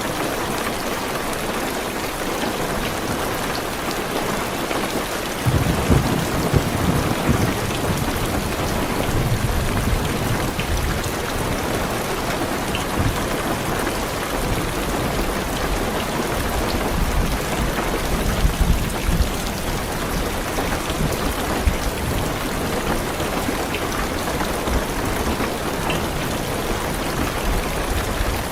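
Heavy rain drumming on a car's roof and windows in a steady hiss. About five seconds in, deep rolling thunder sets in and keeps rumbling underneath the rain.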